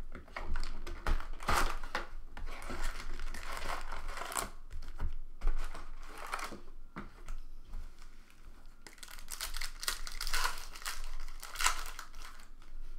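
Foil trading-card packs and their cardboard box being handled and pulled apart by hand: irregular crinkling and rustling, with a few sharper crackles.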